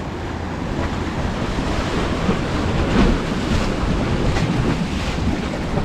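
Ocean waves crashing against shoreline limestone rocks and rushing through them, a churning surf noise that swells to a peak about three seconds in. Wind buffets the microphone.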